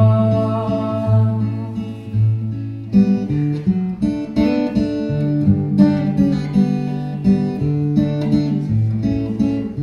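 Acoustic guitar strummed in a slow waltz rhythm as an instrumental passage between sung lines. A held sung note carries over the first couple of seconds.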